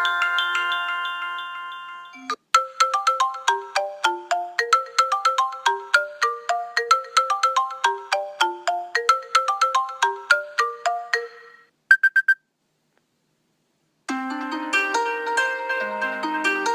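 iPhone ringtones played one after another: one fades out about two seconds in, then a quick, bright melody of short plinking notes runs for about nine seconds and stops. A few short beeps follow, then a brief silence, and a new ringtone of sustained chords begins near the end.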